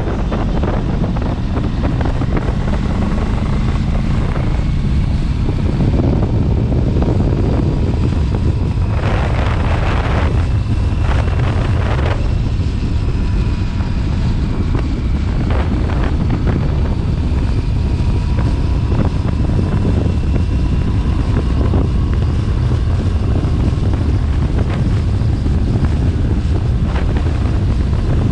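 Aprilia RS 457's 457 cc parallel-twin engine running steadily at about 5,000 rpm through its stock exhaust.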